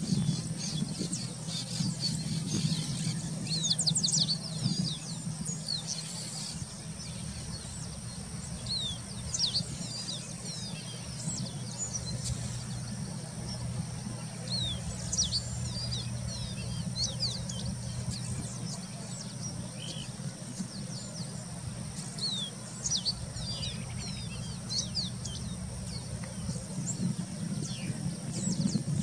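Pearly-bellied seedeater (caboclinho-branco) singing: quick, high, chirping notes in scattered clusters, over a steady thin high-pitched drone and a low hum.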